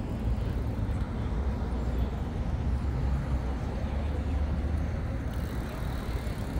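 Steady low rumble of road traffic, heard as outdoor background noise.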